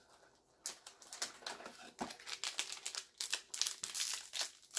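Foil Final Fantasy trading-card booster pack crinkling and tearing as it is handled and opened, starting about a second in.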